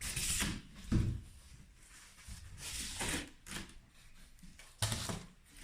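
Cardboard shipping box being handled and opened: several separate bursts of scraping and rustling, with sudden knocks about a second in and near the end.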